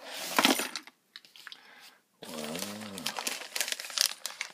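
Plastic bags around carbon fibre tubes crinkling as they are handled, in bursts in the first second and again over the last second and a half. A short hummed voice sound comes between them, a little over two seconds in.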